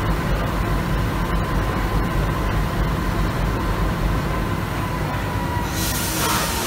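Diesel-electric locomotive idling while stationary: a steady low engine rumble with a thin steady whine over it. A sudden hiss rises near the end.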